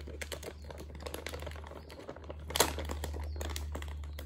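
Clear plastic zip bags crinkling as duct tape is folded over and pressed onto their rims by hand: many small irregular crackles, with one louder crackle about two and a half seconds in.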